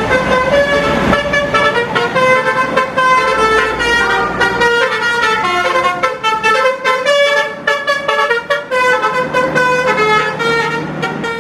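A bus's multi-tone 'telolet basuri' musical horn playing a fast melody of short, changing notes, loud, with a low rumble under the first few seconds.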